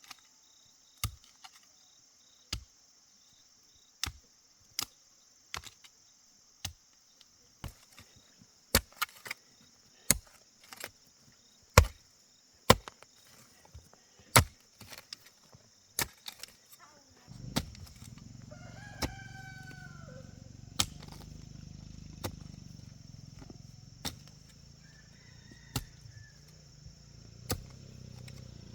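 Irregular sharp knocks, roughly one or two a second, like blows of a tool on wood. A rooster crows once past the middle, and a low steady rumble sets in just before it.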